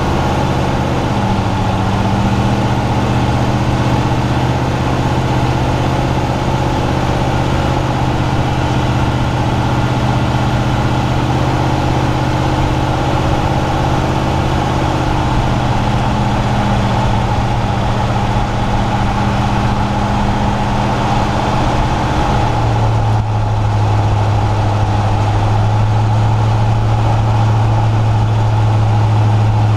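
A 2005 Ford Explorer's 4.6-litre V8 and drivetrain droning at a steady cruise, heard from beneath the chassis together with tyre and road noise. The drone drops in pitch once, about two-thirds of the way through.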